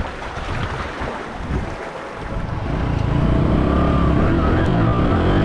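Wind on the microphone and surf breaking against rocks. About three seconds in it changes to louder background music that carries on steadily.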